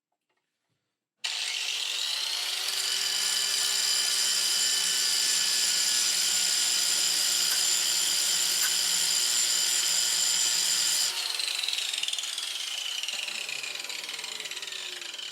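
Angle grinder starting suddenly about a second in, its whine rising to full speed, then running steadily while grinding down a steel valve adjusting shim. Near the end it is switched off and winds down, the whine falling slowly in pitch.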